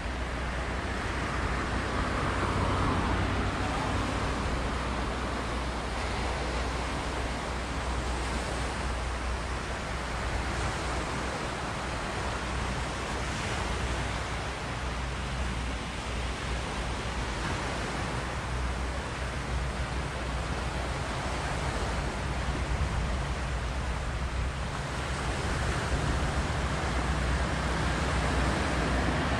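Wind buffeting the microphone in a steady low rumble over the wash of small waves on a rocky shore. Near the end the noise swells as a vehicle approaches on the coast road.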